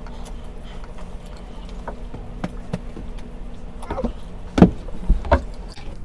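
A mouthful of noodles being slurped and chewed, with small clicks and knocks over a steady low hum. The loudest sound is a sharp knock about four and a half seconds in.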